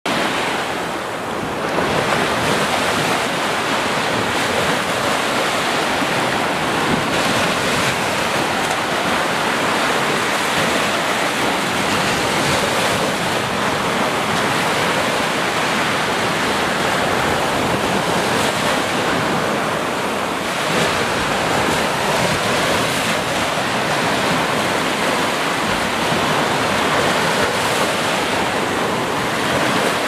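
Small sea waves breaking and washing up a sandy beach: a steady rush of surf that swells every five seconds or so as each wave comes in.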